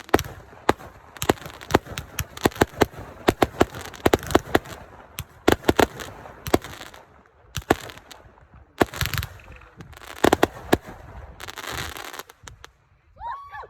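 Consumer fireworks going off: a rapid run of sharp bangs, thinning out in the second half, with several short bursts of crackling near the end.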